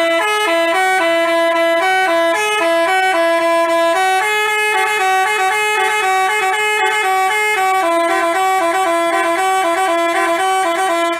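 Basuri telolet bus horn playing a tune in two voices: sustained horn notes that step up and down in pitch. It cuts off suddenly at the end.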